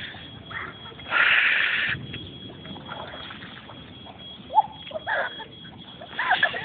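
Feet wading and splashing through ankle-deep flood water on a road, with the loudest splash lasting most of a second about a second in.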